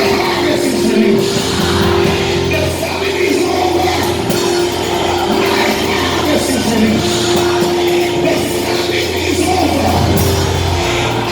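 Live music with long held chords over a steady bass note, and voices singing over it.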